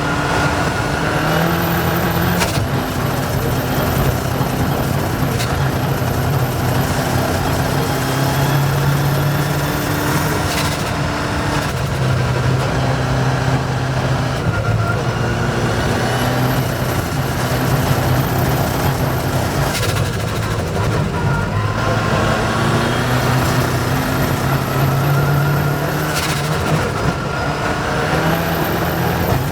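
Rally vehicle's engine driven hard on a stage, running loudly without a break. Its pitch climbs and drops back in steps every few seconds as it is worked through the gears, with a faint high whistle rising three times.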